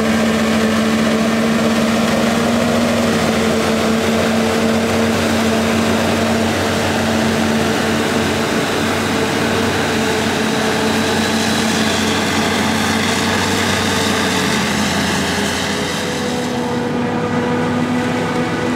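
Forage harvester and tractor engines running steadily under load while chopping maize for silage, with a strong steady hum. Near the end the hum dips briefly, then picks up again slightly higher.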